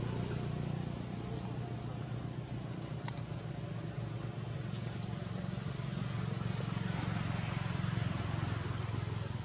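Steady outdoor background: a high, even insect drone over a low, steady hum, with a single click about three seconds in.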